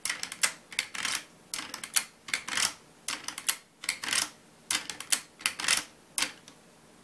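Marlin 336SS lever-action rifle being worked by hand: the finger lever is swung open and shut repeatedly, giving a run of sharp metallic clicks and clacks from the action. The clicking stops a little before the end.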